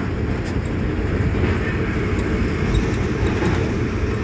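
Steady engine and road rumble heard from inside a moving motor vehicle, travelling along a city street.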